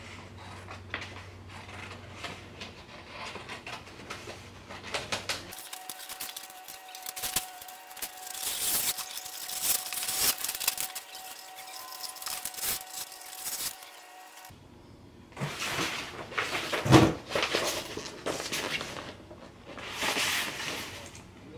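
Large sheets of paper rustling and crinkling as they are pulled out of a cardboard box and unfolded, with a sharp, louder crackle about two-thirds of the way through.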